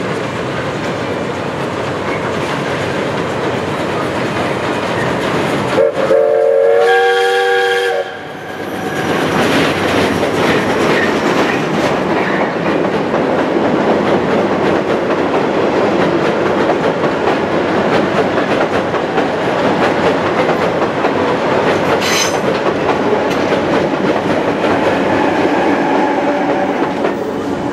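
Steam train dressed as Thomas the Tank Engine crossing a steel girder bridge: a steady rumble, broken about six seconds in by a train whistle of several pitches lasting about two seconds. After the whistle come the louder rumble and clickety-clack of the coaches' wheels on the bridge, easing off near the end.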